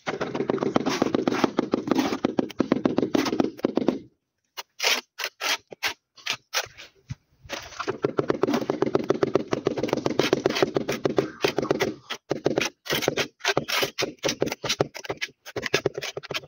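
Rubber mallet tapping a large marble-patterned wall tile to bed it into a layer of tile adhesive: fast runs of many quick knocks, a brief pause about four seconds in, then slower separate taps near the end.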